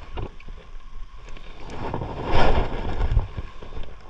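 Wind buffeting the microphone in a steady low rumble, with a stronger gust a little past halfway.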